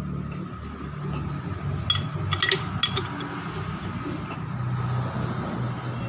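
Metal clinks of a wrench on the crankshaft pulley bolt as the Mitsubishi 4D56 engine is turned over by hand for valve adjustment: a quick cluster of sharp clicks about two to three seconds in, over a steady low hum.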